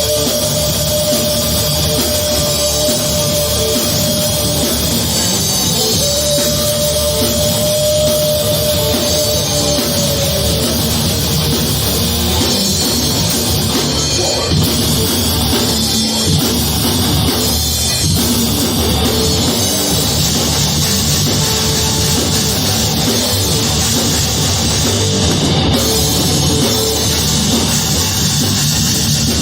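A rock band playing a heavy metal song, with drum kit and guitars. A long held high note sounds twice in the first ten seconds.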